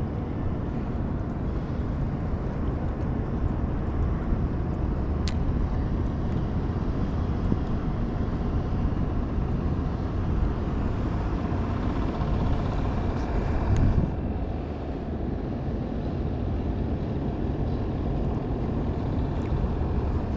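Skiff's outboard motor running steadily while under way, with wind on the microphone.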